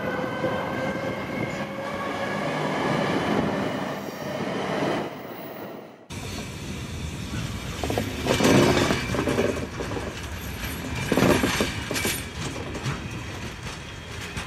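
Shinkansen bullet train pulling into the platform, its motor whine falling slowly in pitch over a rolling rumble as it slows. About six seconds in the sound cuts abruptly to a different rushing rumble with two louder surges.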